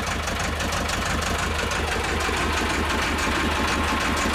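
Four-cylinder marine diesel engine idling with an even, steady beat. It has just been restarted after the carbon under one injector's seat washer was cleaned, the fault that had caused a knock and lost pressure in that cylinder.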